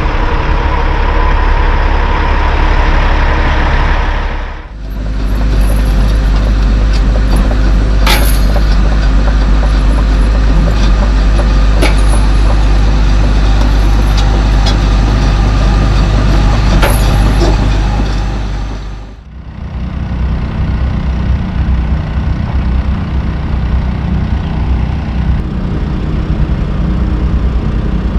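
Heavy diesel truck engines running, in three clips joined by short fades. There are a few sharp clicks in the middle clip.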